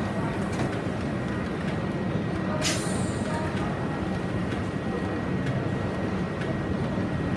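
Steady background din of an exhibition hall, a low rumble with no clear voices, with one short sharp hiss close to three seconds in.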